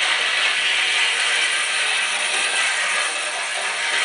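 Model train running on its track: a steady mechanical whir and clatter, dulled and hissy from being played back off an old videotape.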